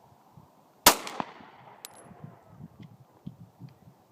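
A single shot from a Glock 19 9mm pistol about a second in, sharp and loud, with its echo trailing off over the next second; a few faint ticks follow.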